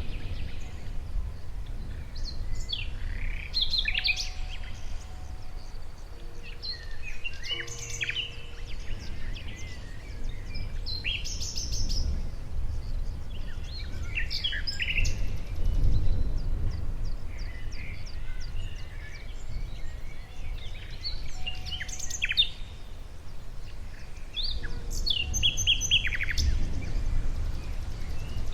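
Songbirds singing, with bursts of quick chirps and trills every few seconds, over a steady low rumble.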